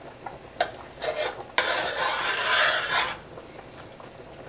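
A metal spoon scraping pressed garlic off a garlic press over a frying pan, with a few clinks of metal on metal and one longer rasping scrape starting about a second and a half in.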